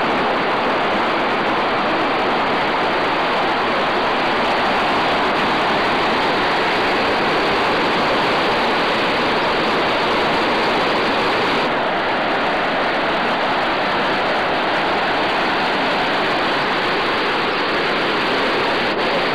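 Steady, loud rush of falling water. The sound dulls slightly about twelve seconds in.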